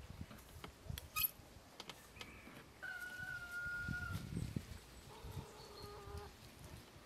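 Birds calling, with one long held call about three seconds in and a shorter lower call near the end. Soft knocks run throughout, with a sharp click about a second in.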